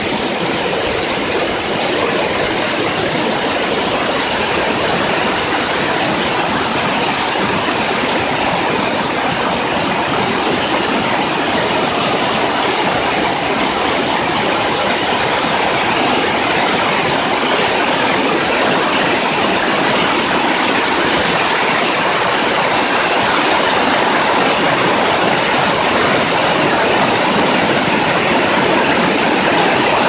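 Waterfall cascade: white water rushing over rock ledges close to the microphone, a loud, steady, unbroken noise.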